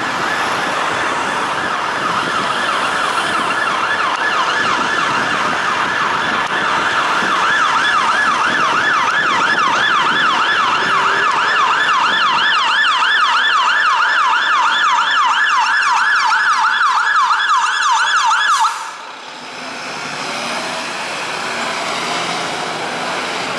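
Electronic siren of a London Fire Brigade Mercedes-Benz Atego pump ladder sounding on an emergency call, a fast yelp sweeping up and down about three times a second. It cuts off suddenly near the end, leaving street traffic noise.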